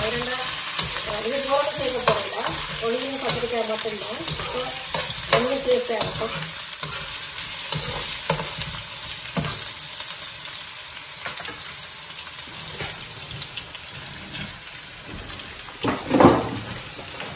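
Sliced onions sizzling in hot oil in a non-stick wok, with the scrape and clink of a metal spoon stirring them. The sizzle grows quieter through the second half, and a single louder knock comes near the end.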